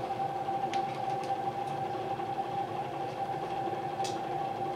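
A Bedini pulse motor's three-pound magnet rotor spinning steadily, driven by a pulsed coil: a continuous mechanical hum with a steady high whine, and a few faint clicks.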